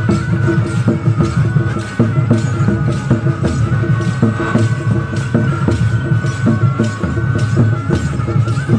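Traditional tribal festival music: dense, heavy nagara drumming under a wind instrument playing a high melody of held notes.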